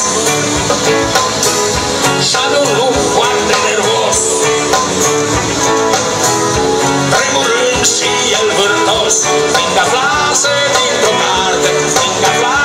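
Rock band playing live through a large outdoor stage PA, heard from among the audience, with guitar to the fore.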